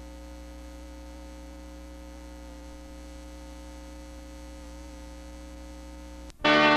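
Steady electrical mains hum with a buzz of many overtones. Just after six seconds it drops out briefly and loud music cuts in.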